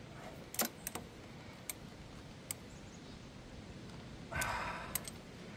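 Scattered sharp metallic clicks and taps of hand tools working a stuck brake-pedal pivot pin loose, with a short scraping noise about four seconds in.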